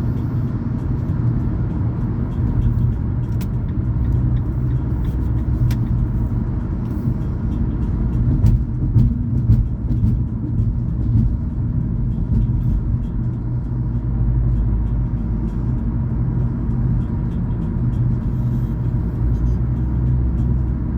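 Car driving along the road: steady low rumble of tyres and engine.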